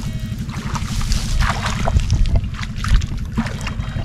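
Paddy water sloshing, with a few short splashes as hands grope through it for fish, over a steady low rumble of wind on the microphone.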